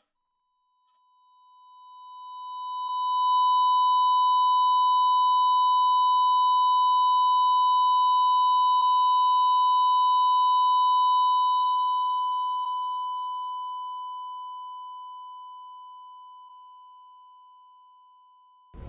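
Heart monitor flatline: one continuous high electronic tone with fainter higher tones alongside, fading in over the first few seconds, holding steady, then slowly dying away.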